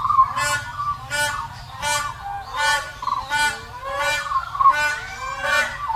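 Waterfowl honking, a regular series of harsh calls coming about once every 0.7 seconds.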